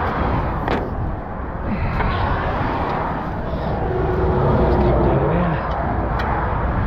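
Steady roar of motorway traffic passing close by, swelling for a second or so about four to five seconds in.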